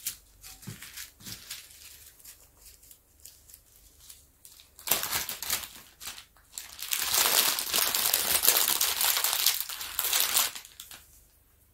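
Small plastic bags of diamond-painting drills crinkling as they are handled and gathered up, with a short burst about five seconds in and a longer stretch of crinkling from about seven seconds to ten and a half.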